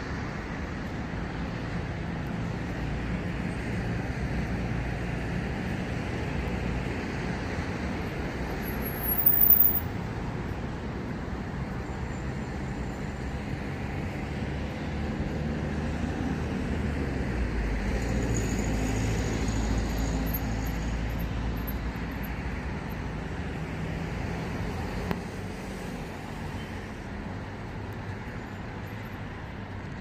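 Road traffic on a multi-lane city road: a steady wash of passing cars, with the low rumble growing louder through the middle. A brief loud burst comes about nine seconds in.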